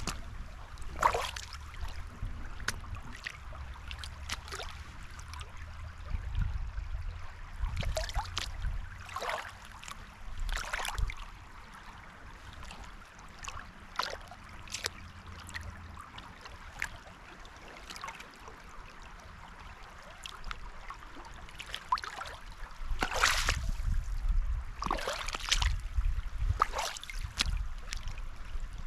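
River water splashing in irregular bursts, the loudest ones in the last third, over a low rumble.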